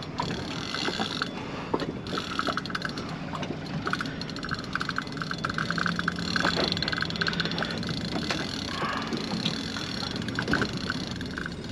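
Rapid ratchet-like clicking in repeated spurts over a steady rush of wind and water, with a low steady hum for a few seconds in the middle.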